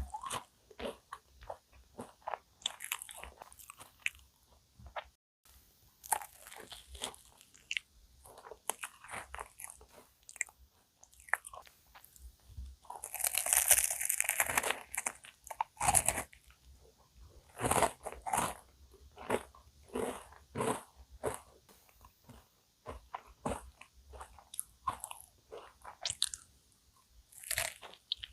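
Close-miked eating of cookie-topped cream puffs: the crisp cookie crust crackles and crunches with bites and chewing. A longer, louder crackle comes about halfway through, followed by one sharp crunch.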